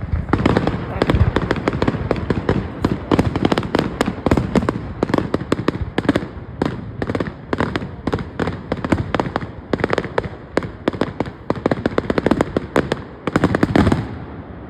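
Fireworks display: a dense barrage of rapid bangs and crackles, many per second, that eases off near the end.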